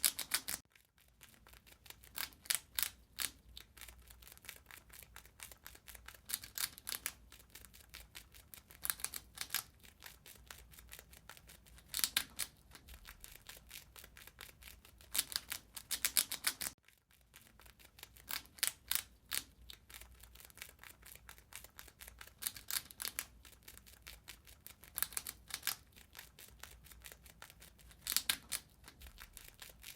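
Rat gnawing and chewing food: rapid crunching clicks coming in short bursts every second or two.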